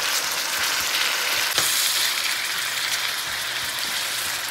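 Shrimp with garlic, onion and ginger sizzling in hot oil in a wok as a utensil stirs them, with one sharp click about a second and a half in.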